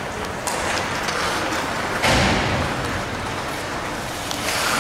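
Ice hockey play in an arena: skates scraping on the ice and sharp stick-and-puck clicks, with a sudden loud thump and rush of noise about two seconds in.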